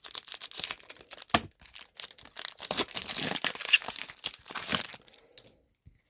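Foil Pokémon booster pack being torn open and crinkled, a dense run of crackling rustle that thins out about five seconds in.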